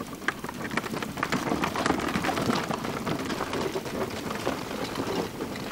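Wheels of a hand-pushed camera dolly and a bicycle rolling over a rough dirt path, a steady crackling, crunching rattle of many small clicks.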